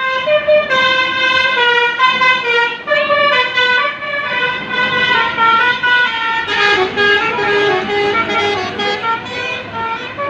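Indonesian bus's 'telolet basuri' multi-tone musical air horn playing a tune of quick stepped notes, several pitches sounding together, for about ten seconds.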